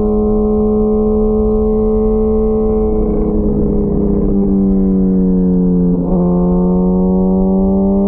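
2004 Kawasaki ZX-10R's 998 cc inline-four through a full Sato titanium exhaust, running steadily under way. Its pitch slowly drops, breaks briefly about six seconds in, then slowly rises again.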